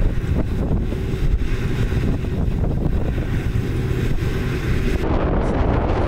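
Gale-force wind buffeting the microphone as a deep, continuous rumble, with a rotary snowblower truck running and blowing snow under it. About five seconds in, the sound changes to a rougher, hissing wind.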